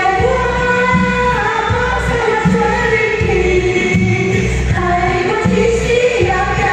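A woman singing a song live over an amplified backing track with a steady beat.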